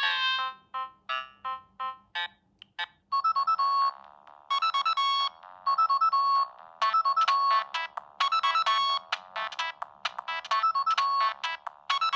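Siemens C65 mobile phone stock ringtones: one ringtone's melody trails off in fading single notes, and after a short pause about three seconds in, another ringtone starts, a short electronic phrase repeated over and over.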